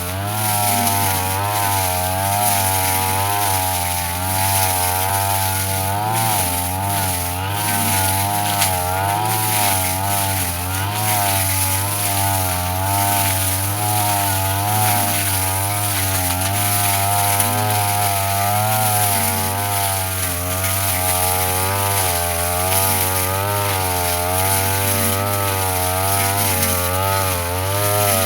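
Brush cutter engine running continuously, its pitch wavering up and down as the blade bites into grass and undergrowth.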